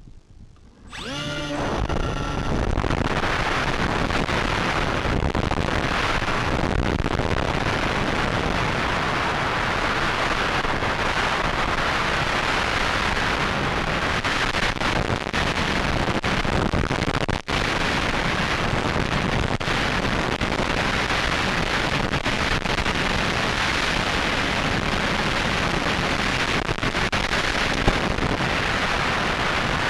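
Small electric motors spinning up with a rising whine about a second in, then a loud, steady rushing noise, with wind on an onboard microphone, as an FPV model gets under way.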